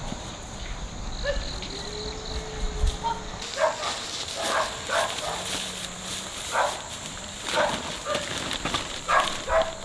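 A Labrador giving a string of short yelps, about one or two a second, starting a few seconds in.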